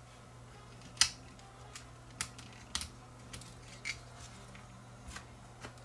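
Flush cutters snipping through the leads of a failed electrolytic capacitor on an amplifier's power-supply board: a sharp click about a second in, then half a dozen lighter clicks.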